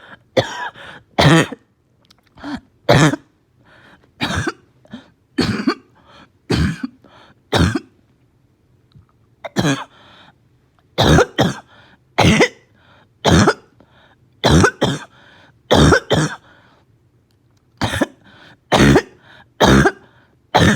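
A person coughing over and over with a barking cough, short hard coughs coming about once a second, with a brief break a little before the middle.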